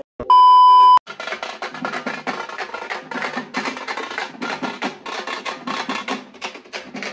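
A loud steady high beep of under a second, like an editor's bleep, then a troupe of strap-slung frame drums beaten in a fast, dense rhythm.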